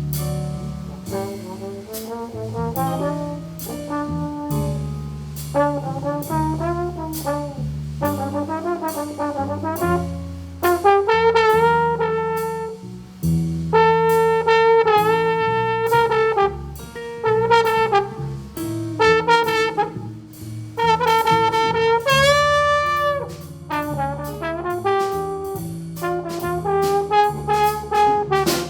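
Jazz orchestra playing a slow tune: a brass instrument carries the melody with long held notes and vibrato over a bass line and regular cymbal strikes. The brass lead grows stronger about ten seconds in.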